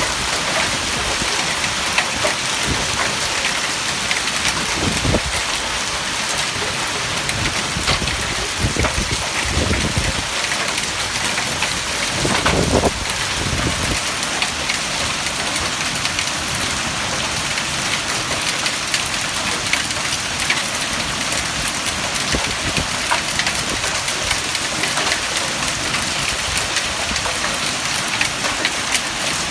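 Heavy rain mixed with hail falling in a steady hiss, dotted with sharp ticks of hailstones striking. A few low rumbles come between about 5 and 14 seconds in.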